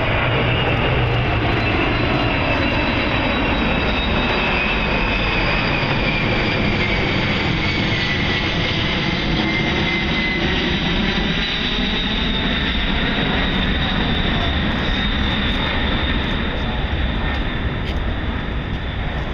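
A Boeing 747 Shuttle Carrier Aircraft, carrying Space Shuttle Endeavour, flying low overhead on its four jet engines: a loud steady jet roar with a whine that slowly falls in pitch as it passes, easing slightly near the end.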